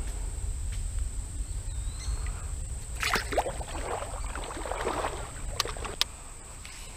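Water splashing for about two and a half seconds near the middle as a smallmouth bass is let go back into a shallow river, over a steady low rumble. Two sharp clicks near the end.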